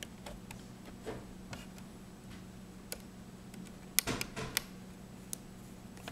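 Small clicks and ticks of a screwdriver and screw being worked into a laptop screen's mounting, scattered through, with a louder cluster of clicks about four seconds in. A faint steady hum lies underneath.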